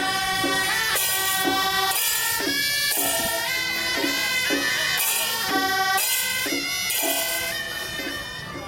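Procession music: a shrill double-reed horn (suona) plays a melody over a steady beat of about two strokes a second, fading near the end.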